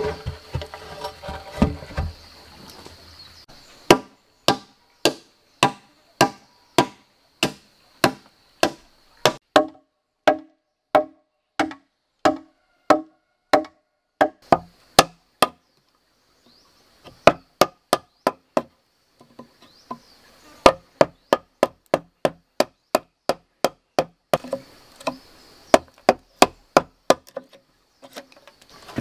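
Wooden mallet striking a chisel into a log, a run of sharp wooden knocks at about two a second, cutting a notch; the strikes start a few seconds in, pause twice briefly, and come faster near the end.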